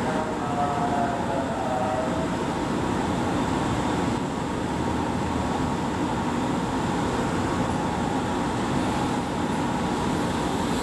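Keihan 9000-series electric train pulling slowly into the station platform, a steady rumble of motors and wheels on the rails. A few brief high tones sound in the first two seconds.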